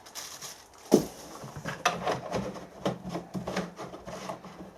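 Parts of a diesel heater kit being handled and set down: one sharp knock about a second in, then a run of lighter knocks, clicks and rubbing.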